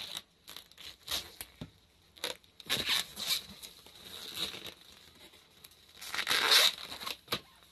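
Long latex modelling balloons being handled and twisted by hand: a series of short rubbing sounds of rubber on rubber and fingers, the longest and loudest about six and a half seconds in.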